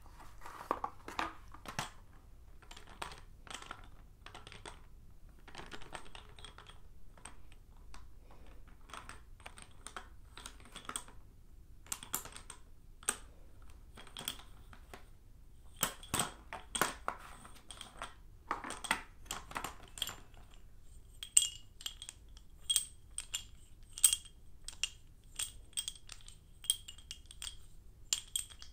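Sticks of blackboard chalk clicking and knocking as they are handled, set down on a small blackboard and knocked against one another. About two-thirds of the way through, the knocks turn into bright, ringing clinks.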